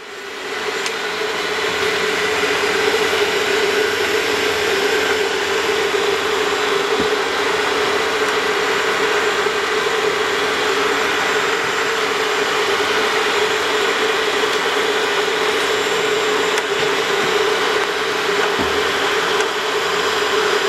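Cable lift's winch motor running at speed with a steady hum, building up over the first couple of seconds as the lift speeds up on its way down the crater shaft.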